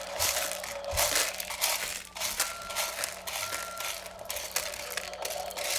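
Small dyed dried beans rattling as a child's hands scoop and pour them between a plastic basket and a plastic toy garbage truck's bin, an irregular rustling clatter.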